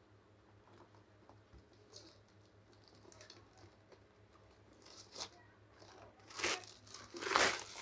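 Clear plastic shrink wrap being torn and pulled off a cardboard box, crinkling. It is faint at first, with several louder rips in the last three seconds.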